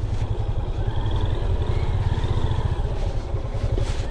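Motorcycle engine running steadily while riding, a strong, rapidly pulsing low rumble.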